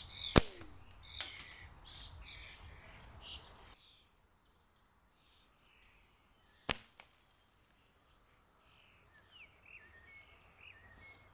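Slingshot shot striking a beer bottle cap on a grill lid about half a second in: one sharp crack with a brief falling tone after it. A second sharp crack comes about midway. Birds chirp around the shots.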